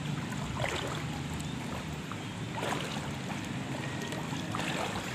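Floodwater sloshing and splashing as a person wades through it, with a splash every second or two.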